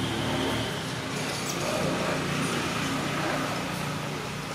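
Steady outdoor background rumble, low and unbroken, with no distinct calls or knocks.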